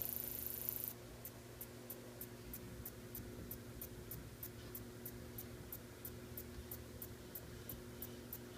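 Grasshopper stridulating: a continuous high-pitched buzz that cuts off about a second in, then short, high chirps repeating evenly about three times a second.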